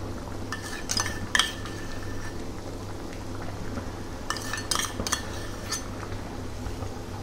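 Metal spoon clinking and scraping against a steel bowl and pan while whipped milk cream is scooped into simmering spinach purée: a cluster of ringing clinks about a second in and another from about four to six seconds in. A steady low hum runs underneath.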